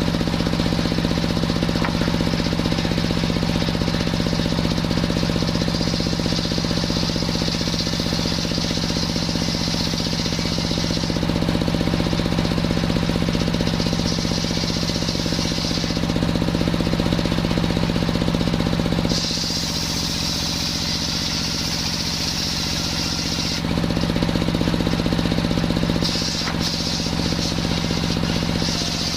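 Engine-driven circular sawmill running steadily, its blade sawing through coconut-palm wood with a high hiss over the engine's drone. The hiss drops away twice, for about four seconds past the middle and briefly again a little later, leaving the engine and blade running between cuts.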